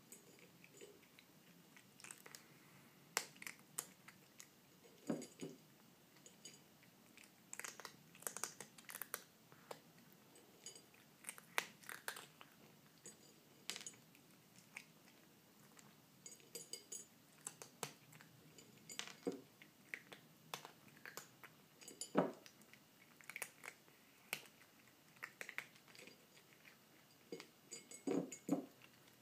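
A kitten crunching dry cat kibble, with many short, irregular crunches as it bites and chews.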